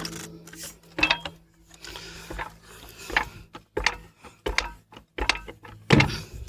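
Irregular metallic clicks and clanks of lug nuts and wheel tools during a tyre change, with several short ratcheting bursts, the loudest near the end.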